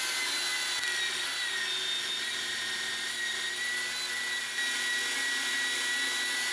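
Power cutting tool running steadily with a high whine as it cuts a slot into 3/8-inch steel rebar.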